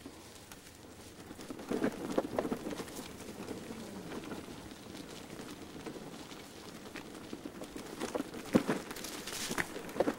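Bicycles rolling along a dirt-and-gravel towpath: a steady crunching crackle from the tyres, broken by irregular rattles and knocks. The knocks are loudest about two seconds in and again near the end.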